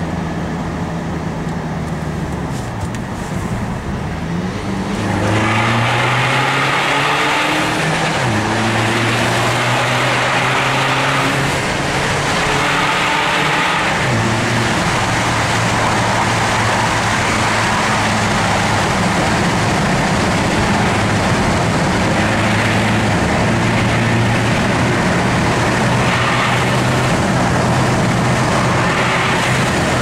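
Audi A4 B7's engine and road noise heard from inside the cabin while driving. The engine rises in pitch as the car accelerates, drops back twice as it changes up, then runs at a steady cruise.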